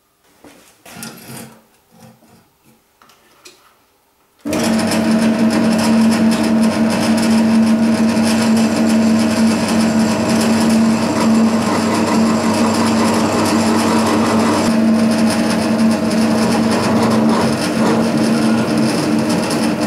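A few light knocks and rattles, then about four and a half seconds in a benchtop drill press starts and runs steadily with a constant hum, its bit drilling into steel bar.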